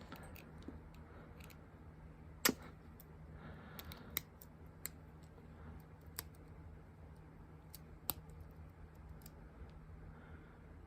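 Sharp metal clicks and small scrapes from a pocket multi-tool's folding implements being worked, one of them stiff to open. The clicks come singly and irregularly, the loudest about two and a half seconds in.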